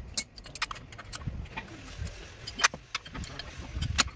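Scattered metal clicks and clinks from hands working on a car's front CV axle and wheel hub, with a sharper knock about two and a half seconds in and another near the end, over a low rumble.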